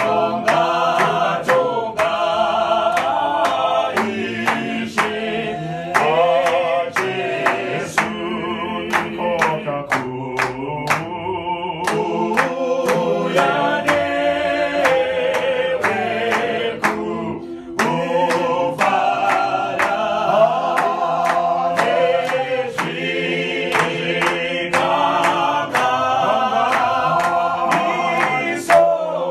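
A small group singing a Shona hymn a cappella in harmony, with hand claps keeping a steady beat.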